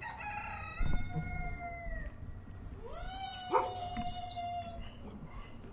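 Domestic cat yowling in two long drawn-out wails, the first sinking slightly in pitch, the second steady and louder: a cat's threat yowl at a tegu lizard. A low thump comes about a second in.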